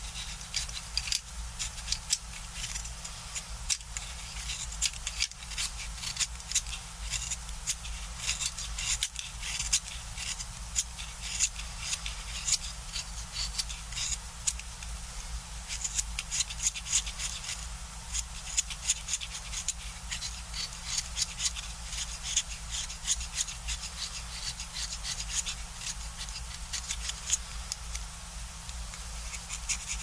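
Snap-off utility knife shaving the wood of a colored pencil by hand: quick, repeated scraping strokes of the blade, several a second and uneven in force.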